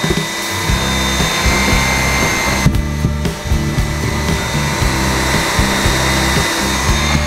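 Dyson V7 Mattress cordless handheld vacuum running, a steady high motor whine with airflow hiss that dips briefly about three seconds in, over background music with a bass line.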